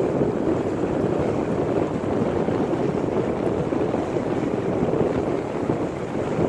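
Wind buffeting the microphone: a steady, uneven rush with no distinct events.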